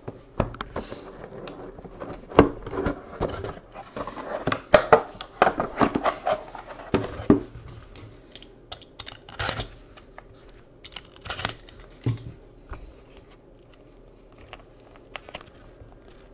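Trading cards and a small cardboard pack box being handled: a string of sharp clicks and rustles as the cards are flicked and the box is worked open, busy for about ten seconds, then sparser.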